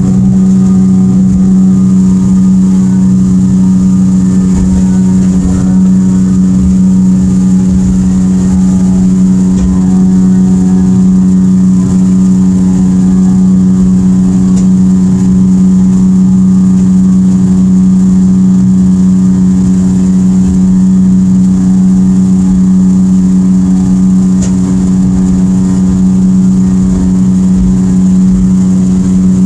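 Evinrude E-TEC 115 two-stroke outboard running at a steady high cruising speed, a loud even drone that holds one pitch throughout, over a rough rush of wind and water.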